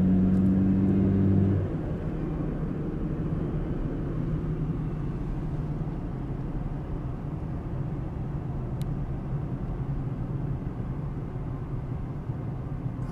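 A loud, steady low hum that cuts off suddenly about a second and a half in, then steady road and engine noise heard inside a moving car's cabin.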